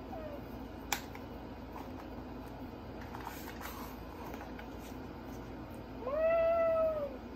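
A child voicing a cat's meow: one drawn-out meow, about a second long, rising and then falling in pitch, near the end. Before it there is a sharp click and the faint rustle of a book page being turned.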